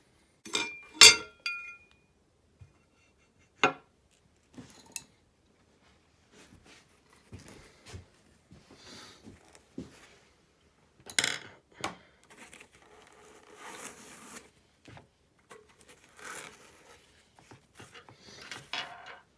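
Hard parts of a bucking dummy's internals being handled: irregular clicks, knocks and clinks, with a sharp clack about a second in. Later come stretches of rustling and scraping.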